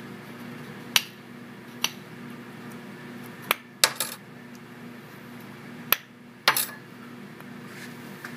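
Sharp metallic clicks and clinks, several spread irregularly, as the carburetor's CV slide and the steel straight edges are worked against the metal carburetor body. A steady low hum runs underneath.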